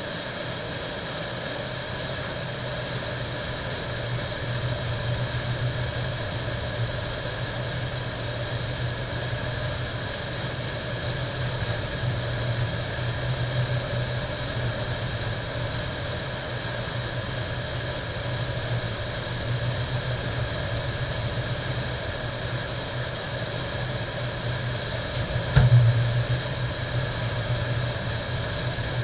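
Steady roar of whitewater pouring through a river wave, with a low rumble under the rush. A single sharp knock about three-quarters of the way through.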